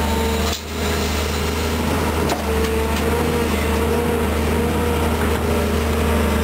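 Volvo EC210B excavator's diesel engine and hydraulics running steadily under load as the arm swings a loaded bucket and dumps dirt, with a wavering pitched hum over a deep engine drone. The sound briefly dips about half a second in.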